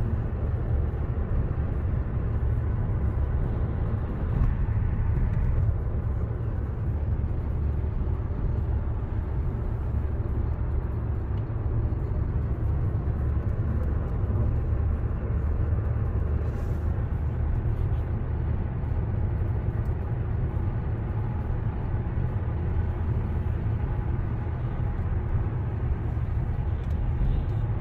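Steady low rumble of tyre and engine noise heard inside a car's cabin while it drives at highway speed.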